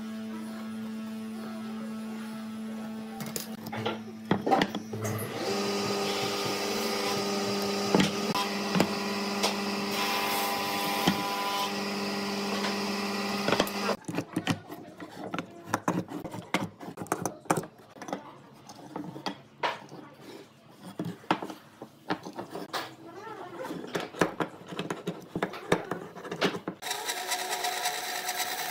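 Woodworking shop sounds in several parts: a steady machine hum, then a small power tool running steadily for about eight seconds, then a stretch of irregular clicks and knocks from hand work on pine blocks, and near the end a band saw running as it cuts pine.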